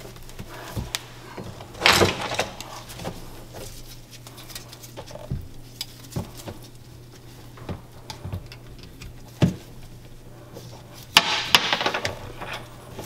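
Hands working hoses and fittings around a personal watercraft engine in its hull: scattered clicks and knocks, with louder rustling scrapes about two seconds in and again near the end, over a steady low hum.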